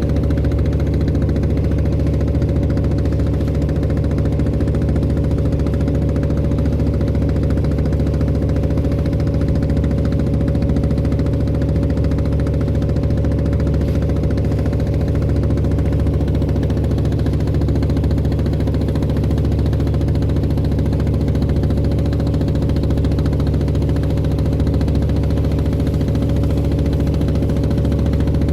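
Klotok boat's diesel engine running steadily, a loud, even drone with steady tones and no change in speed.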